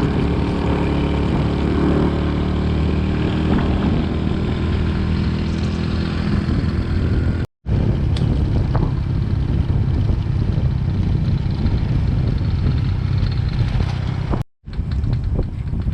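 Motorbike engine running steadily while riding, with wind rushing over the microphone. The sound cuts out for a moment twice.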